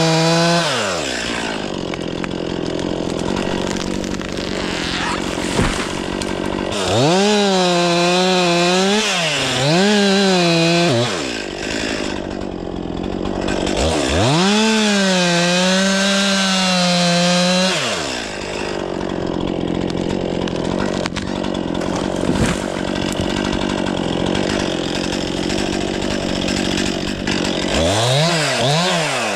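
Stihl MS 500i two-stroke chainsaw cutting through wood in long stretches, with the engine revved freely up and down between cuts, three times.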